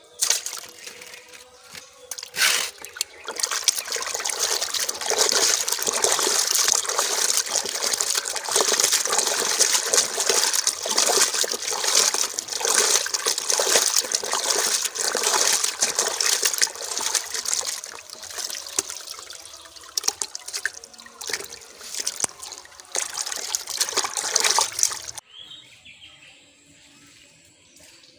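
Water sloshing and splashing in a plastic bucket as hands rub and rinse cut fish pieces, a busy, irregular churning that stops abruptly a few seconds before the end.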